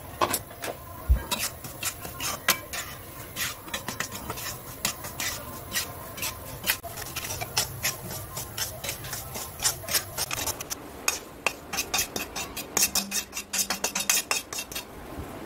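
A utensil scraping and knocking against a non-stick wok as a dry, crumbly semolina and khoya mixture is stirred, with irregular clicks and scrapes that come faster near the end.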